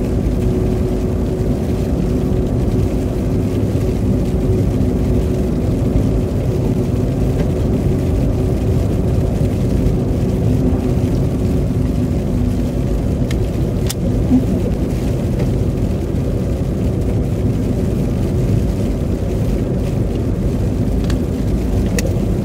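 Steady low road and engine noise of a moving car, heard inside the cabin as it drives on a wet, slushy winter road. A faint steady hum sits over the rumble in the first half and fades out about halfway through.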